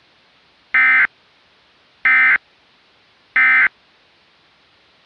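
Three short bursts of high-pitched EAS SAME digital data tones, each about a third of a second long and a little over a second apart: the end-of-message code that closes an Emergency Alert System broadcast.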